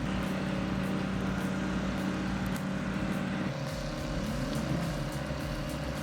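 Excavator engine running steadily under work, revving up near the start and again about four and a half seconds in.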